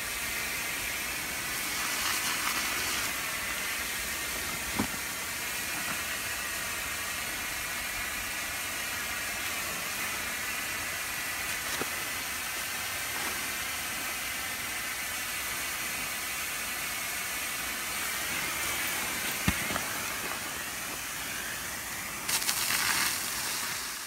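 Charged 1.5-inch wildland fire hose spraying water from its nozzle: a steady hiss of rushing water, with a couple of light knocks.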